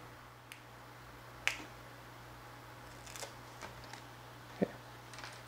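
Small handling noises of sticker paper and a circuit board on a cutting mat: a sharp click about one and a half seconds in, a few brief rustles and ticks, and a duller tap near the end, over a faint steady low hum.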